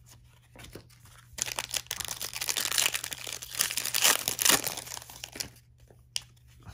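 Plastic trading card pack wrapper being torn open and crinkled, a dense crackling that starts about a second and a half in and stops about five and a half seconds in.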